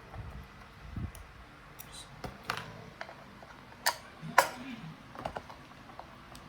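Scattered small clicks and knocks of a wall clock movement and its cover being handled and pried open, with two sharper clicks about four seconds in.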